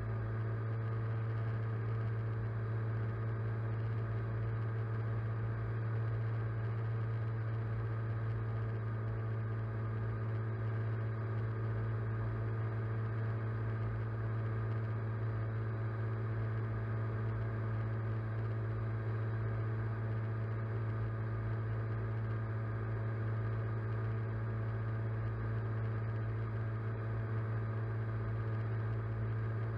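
Drone's motors and propellers humming steadily, heard through the onboard camera's microphone: a constant low drone with steady whine tones above it and no change in pitch.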